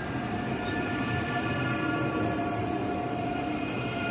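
Deutsche Bahn ICE train rolling slowly past along the platform, its wheels squealing in several steady high tones over the low rumble of the running gear.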